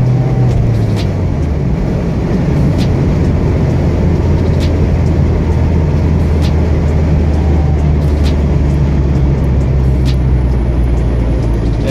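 Steady engine and road drone inside a moving car, with a faint tick about every two seconds.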